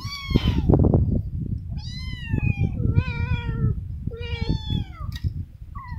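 Cats meowing for food at feeding time, four meows that each fall in pitch. Underneath are low knocks and scraping from a spoon serving canned wet cat food into a metal bowl.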